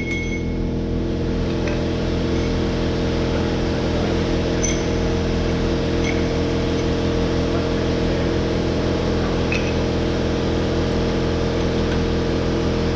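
A motor-driven machine running steadily with a constant hum, with a few faint ticks over it; it shuts off right at the end.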